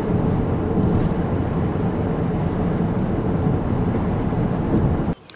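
A car driving through a road tunnel: a loud, steady rumble of tyre and engine noise that cuts off suddenly near the end.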